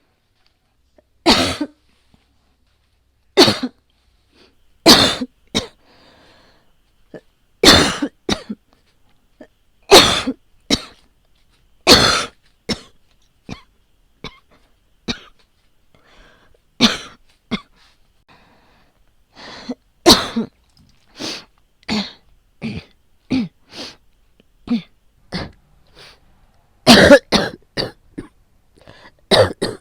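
A woman coughing again and again: single coughs every second or two at first, then a quicker run of lighter coughs, and several hard coughs close together near the end.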